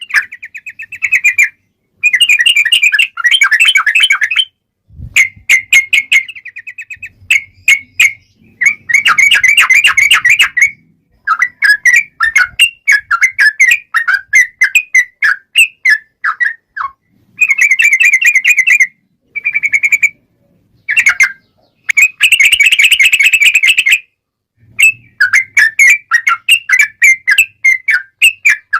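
Yellow-vented bulbul (trucukan) singing a fast, combative song: long rolling phrases of rapid, closely packed chattering notes, each burst lasting one to three seconds with short breaks between them.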